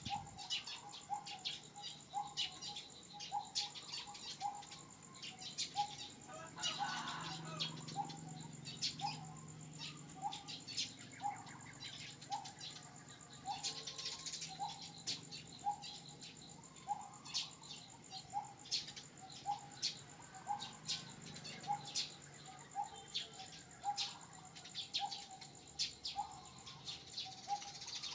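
Forest ambience: a bird repeats a short rising call about one and a half times a second, over a steady high insect whine, with scattered crackles and clicks.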